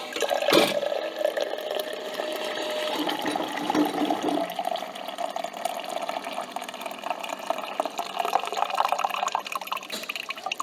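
Coffee trickling and dripping into a cup from a coffee machine, after a click about half a second in.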